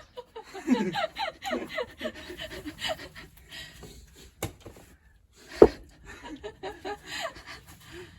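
A person laughing in short breathy bursts, with two sharp knocks near the middle, the second the loudest.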